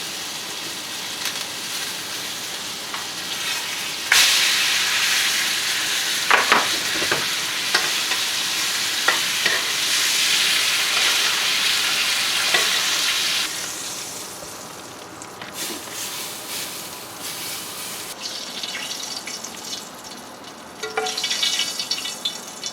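Steak sizzling in a hot pan of foaming butter, garlic and thyme while it is basted: a steady sizzle that jumps louder about four seconds in, with scattered clicks, then dies down after about thirteen seconds.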